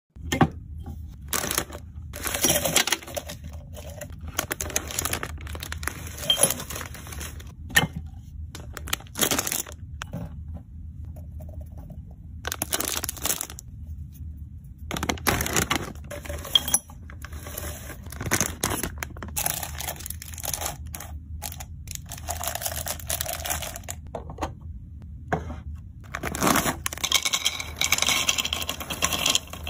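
Candy restocking by hand: plastic snack packets crinkling and tearing, and sweets and small biscuits dropped and poured into glass jars in a string of separate clinks, clatters and rustles. The loudest is a longer pour near the end.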